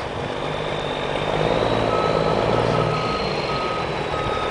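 Snow plow truck running as it backs up. Its reversing alarm beeps steadily from about two seconds in.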